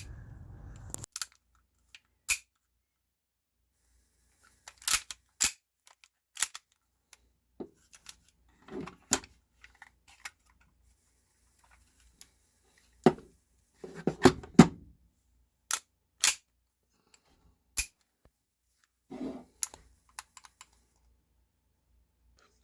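Airsoft 1911 replica pistols being handled: sharp metal clicks and clacks spaced irregularly, with a few short clattering spells of parts being worked.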